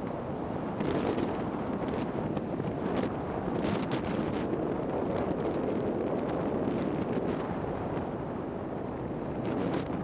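Wind rushing over the camera microphone as a skier moves downhill, mixed with skis hissing over groomed snow and a few sharper scrapes, clustered about a second in, around three to four seconds in, and near the end.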